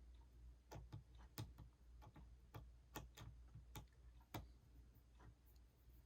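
Faint, irregular small clicks and taps of repair tools against the parts of an iPhone 6, about eight over a few seconds, over a low steady hum.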